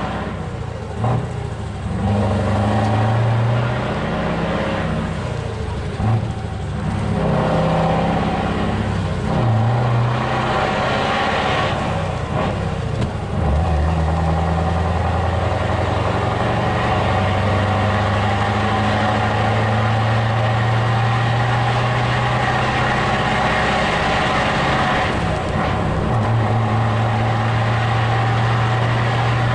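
Scania truck's V8 diesel engine heard from inside the cab. For about the first dozen seconds it pulls up through the gears, its note rising in each gear with breaks between. It then runs at a steady note while cruising.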